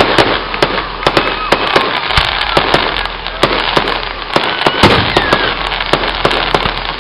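Aerial fireworks going off: a rapid, irregular stream of sharp bangs and crackling from bursting shells, with the loudest bang about five seconds in.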